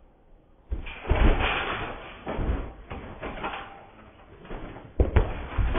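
Thuds of feet landing on a trampoline bed in repeated bounces. The thuds come irregularly, starting about a second in, with another cluster near the end.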